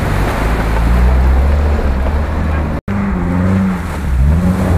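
Off-road 4x4 engines pulling through a muddy water crossing, with water and mud splashing around the wheels. The sound cuts out for an instant nearly three seconds in. After that an engine revs up and down as another vehicle works its way through the water.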